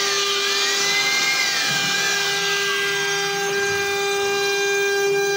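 Multi-head ADIL CNC wood router cutting a wooden panel: the spindles hold a steady high whine while the bits' cutting noise slides up and down in pitch as the head moves through the wood over the first few seconds.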